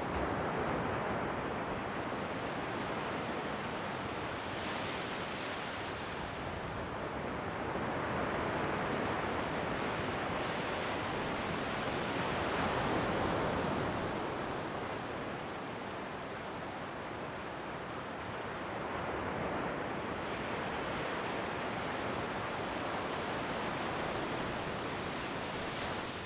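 Ocean waves washing onto the shore in a steady surf, swelling and easing slowly every few seconds, with some wind noise.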